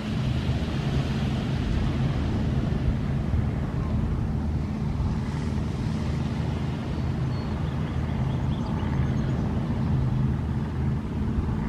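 Steady low engine drone that holds an even pitch, with no change in speed.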